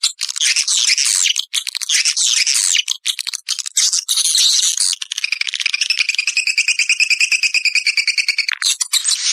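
Swiftlet calls from a swiftlet-house lure sound track: quick chirps and twitters, then from about five seconds in one long, rapid, buzzing trill held for about three and a half seconds, then more chirps near the end.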